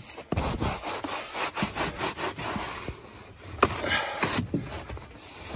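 A wet rag scrubbing foil-faced insulation inside an air handler cabinet, a run of irregular rubbing and scraping strokes as organic growth is wiped off.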